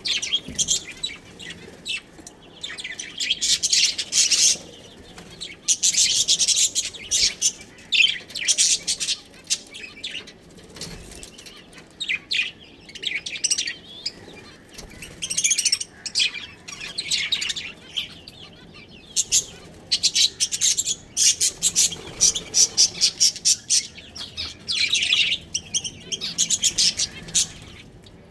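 Budgerigars chirping and chattering in quick, high-pitched bouts, with short pauses between runs of warbling.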